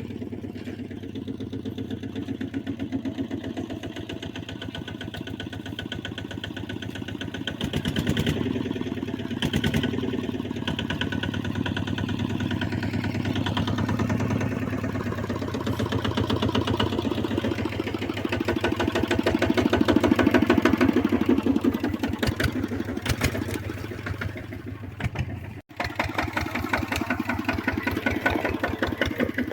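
A mid-sized engine running steadily with a rapid firing beat, its loudness swelling and easing, loudest about two-thirds of the way in, with a brief drop-out near the end.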